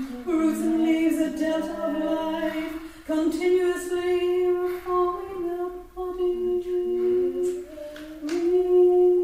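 Unaccompanied voices singing long held notes in overlapping parts, without recognisable words.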